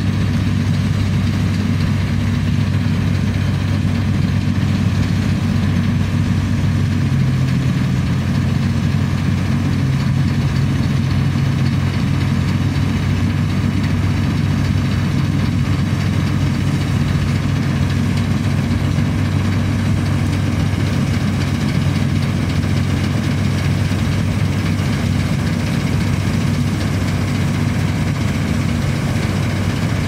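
Fortschritt E512 combine harvester's diesel engine running steadily while the machine cuts grain, its note stepping up slightly about seven seconds in.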